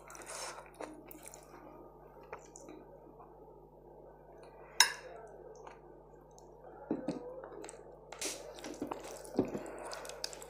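A metal spoon ladling nadru yakhni, lotus stem in yogurt gravy, from a ceramic bowl onto brown rice on a glass plate, with one sharp clink of dishware about five seconds in. Later, soft wet squishing as the rice and gravy are mixed by hand.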